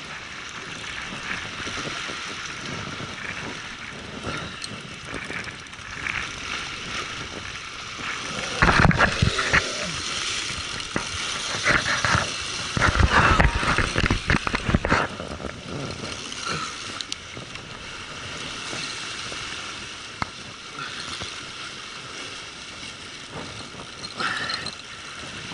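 Spinning reel's drag buzzing steadily as a hooked hiramasa (yellowtail amberjack) runs and strips line. Loud rumbling bursts come twice near the middle.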